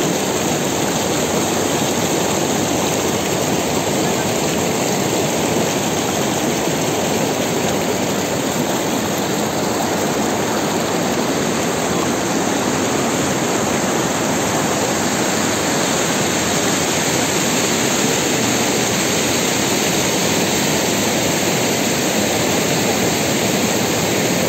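Fast mountain stream rushing: a loud, steady noise of water that never lets up.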